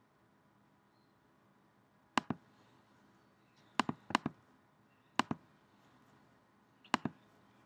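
Computer mouse clicking five times, each click a quick double tick of button press and release, spaced unevenly over a quiet room background.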